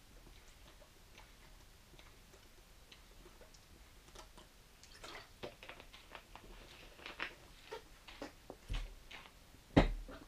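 A few quiet seconds of room tone, then small clicks and crinkles of a plastic water bottle being handled, and one loud knock on the wooden table near the end.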